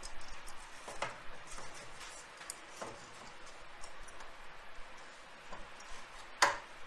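A few light clicks and knocks from handling freshly cut wood pieces while measuring them, with a sharper knock about six and a half seconds in.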